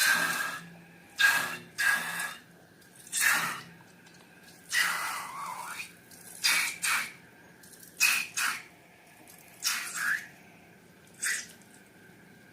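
Sticky wet slime being squished and pulled by hand: a series of about ten short squishing sounds at irregular intervals.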